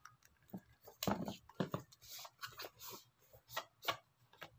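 Irregular soft taps, scrapes and rustles of a cardboard phone box being handled and turned over in the hands.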